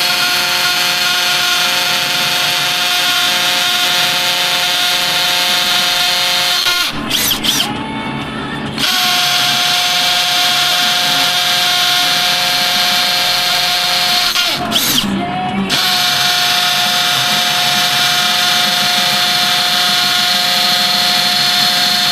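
Power drill running at steady speed in three long runs, each several seconds, with short pauses between them.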